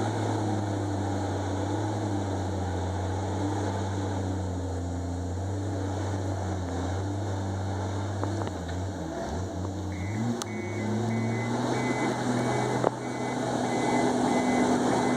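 Komatsu D51EX bulldozer's diesel engine running steadily, its pitch dropping sharply about nine seconds in and then climbing back. About ten seconds in, a reversing alarm starts beeping at an even pace.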